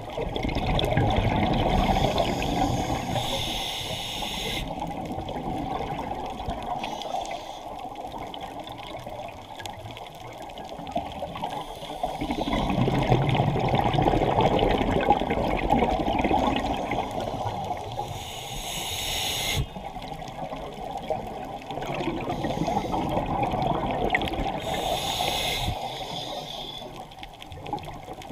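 Scuba diver breathing through a regulator underwater: short hissing inhales and long rushes of exhaled bubbles, in a few slow breath cycles.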